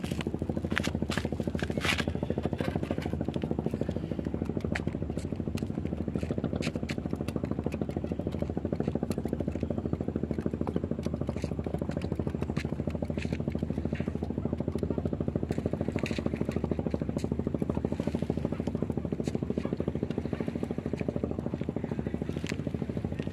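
An engine running steadily at idle, a low even hum with a fast pulse. Scattered light clicks and scrapes come from fishing tackle being handled.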